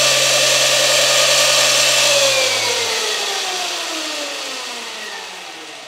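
Electric Motion Escape electric trials bike running at full power with its rear wheel spinning free in the air and traction control off: a loud electric motor whine that holds at top speed for about two seconds, then falls steadily as the wheel spins down.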